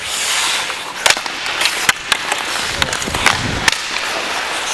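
Ice hockey skate blades scraping and carving on the rink ice, with a loud hissing scrape at the start, and several sharp clacks of sticks and puck through the rest.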